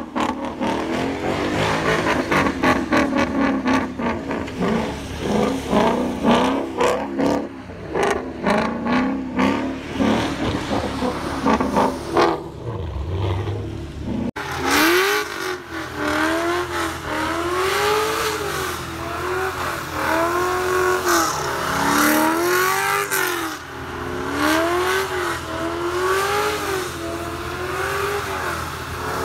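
Ford Mustang doing donuts on wet pavement, its engine revving up and down over and over as the rear tyres spin. The sound cuts abruptly to a new shot about halfway through, after which the revs keep rising and falling in a steady repeating wave.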